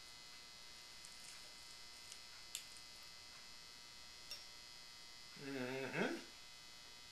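Faint steady electrical hum with two light clicks of carving cutlery against the roasted ham and platter, and a short vocal sound from a man about five and a half seconds in.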